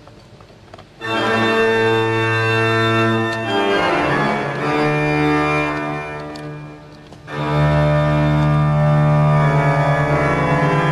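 Two-manual church pipe organ playing. After a quiet moment, a loud sustained chord enters about a second in. A shifting passage follows and dies away, and a second full chord with deep bass notes sets in about seven seconds in and is held.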